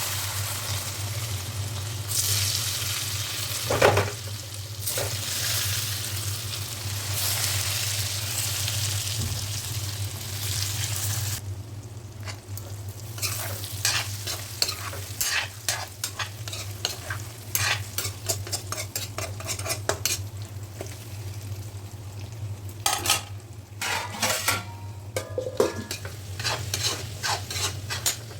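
Brinjal frying in a pan with a steady sizzle. From about halfway through, a spoon or spatula stirs it, with repeated clicks and scrapes against the pan.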